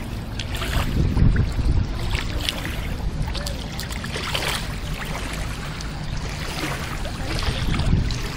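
Gusty wind rumbling on the microphone over small waves lapping in shallow water.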